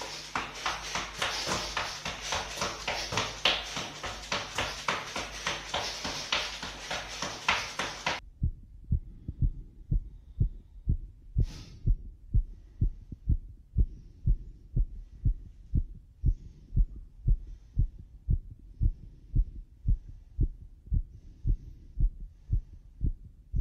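Feet jogging in place on a wooden floor for several seconds. Then a heartbeat heard through a stethoscope pressed to the chest, a steady run of low thumps after a short jog, with one sharp knock from the chest piece a few seconds in.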